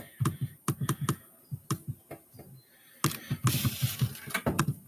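Computer keyboard typing: irregular key clicks, several a second, with a denser flurry about three seconds in.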